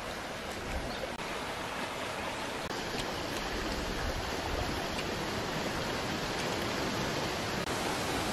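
Steady rushing of flowing stream water, with a few faint ticks over it.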